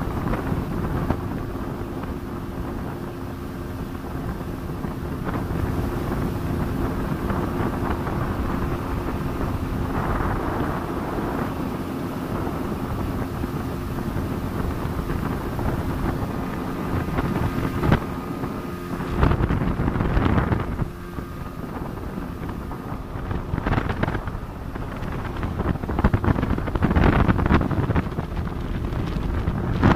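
Speedboat engine running steadily under way, with wind buffeting the microphone. About two-thirds of the way through, the engine's steady tone fades and rough gusts of wind noise take over.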